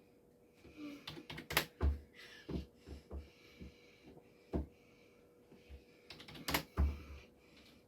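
Typing on a computer keyboard: irregular keystrokes, a few struck harder than the rest, over a faint steady hum.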